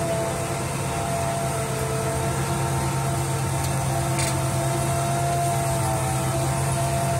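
John Deere 8400R tractor's six-cylinder diesel engine running steadily under load as it pulls a drainage plow through the soil.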